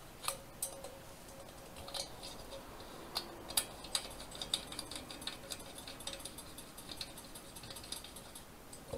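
Faint small clicks and light scraping of a trumpet's metal valve parts being handled during inspection and cleaning, a few separate clicks at first, then quicker ticking in the second half.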